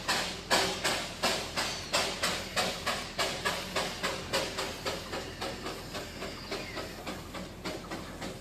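Darjeeling Himalayan Railway steam locomotive working, its exhaust chuffing in a steady beat of about three a second that quickens slightly and grows fainter.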